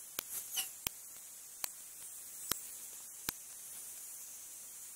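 A string of short, sharp clicks, roughly one a second, over a steady hiss, with a couple of faint chirps between them.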